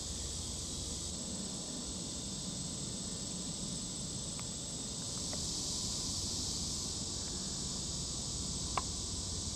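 Steady, high-pitched chorus of summer insects droning in the woods, a little louder about halfway through. Two brief faint clicks are heard, one about four seconds in and a sharper one near the end.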